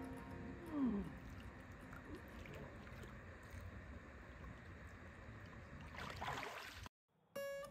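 Faint lake water lapping and sloshing around a person wading in the shallows. Acoustic guitar notes fade out in the first second, and the guitar music starts again near the end after a brief silence.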